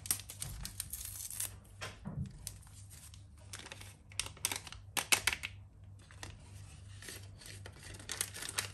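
Small paper sachets of baking powder and vanilla sugar being torn open and crinkled by hand, in several short bursts of sharp paper rustling as the powder is shaken out over a mixing bowl.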